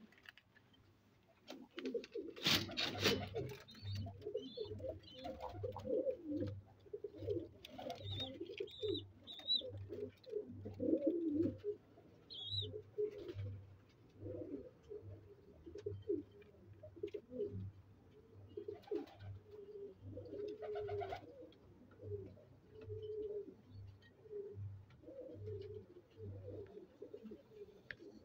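Pakistani high-flyer pigeons cooing, many overlapping low throaty coos, with a few short high chirps. A low regular pulse runs beneath, a little under twice a second.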